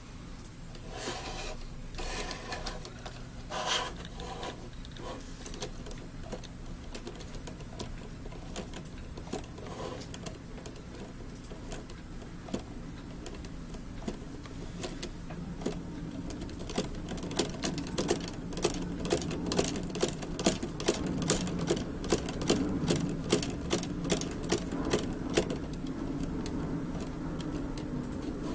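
LEGO Technic typewriter-mechanism model working, its plastic parts clicking and clattering. Early on the clicks are scattered. From about halfway a steady hum sets in, and sharp clicks come regularly, about two a second, until near the end.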